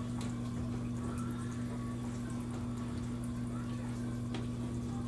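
Steady low electrical hum with a faint hiss over it, and a single click about four seconds in.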